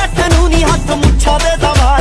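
Background music: a Punjabi pop song with a steady heavy beat and a melody line over it.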